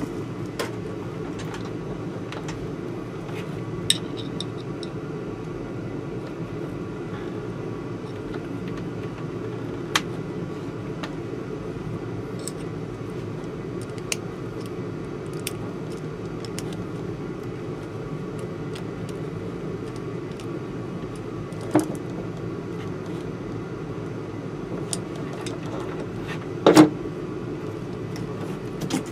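A steady low hum throughout, with scattered sharp clicks and knocks from hands handling wires and small parts during wiring work; the loudest knock comes near the end.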